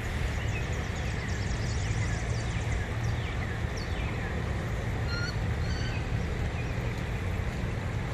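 A steady low rush of outdoor background noise. Over it, a bird gives short falling chirps about twice a second, then a few short whistled calls about five seconds in.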